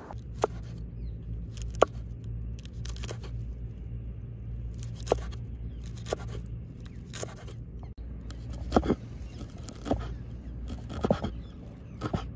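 Kitchen knife slicing green chillies on a wooden cutting board: a crisp chop against the wood about once a second, unevenly spaced, over a steady low hum.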